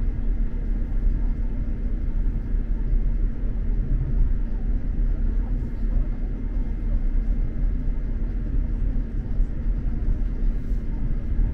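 X2000 high-speed train running at speed, heard from inside the passenger carriage: a steady low rumble with a faint steady hum.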